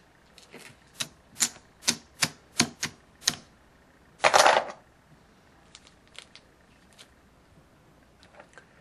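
Poker chips clicking against one another as they are picked up and stacked, about eight sharp clicks over three seconds, then a louder clatter lasting about half a second.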